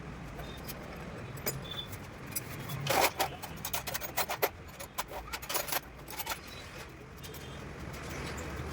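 Metal parts clinking and scraping as motorcycle clutch plates are handled and fitted. A quick cluster of sharp clicks comes a few seconds in, over a low steady hum.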